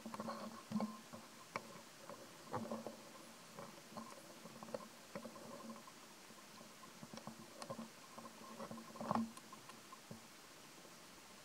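Irregular faint clicks and crackles, a few louder than the rest, over a faint steady hum.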